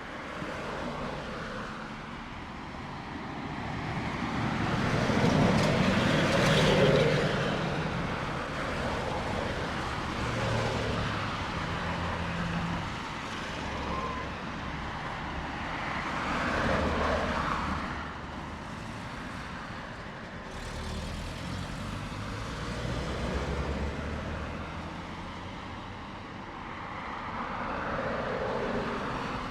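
Town main-street traffic: cars and heavier vehicles passing one after another over a steady background hum, the loudest pass about six seconds in.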